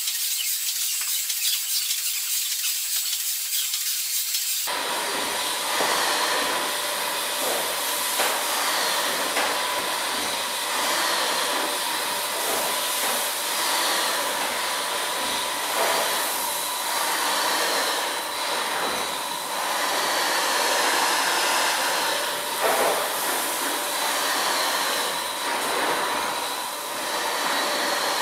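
The 1895 Worth Mackenzie triple-expansion steam engine running slowly under steam: a steady hiss of steam and machinery with faint knocks at regular intervals. It starts as a thin high hiss and fills out about five seconds in.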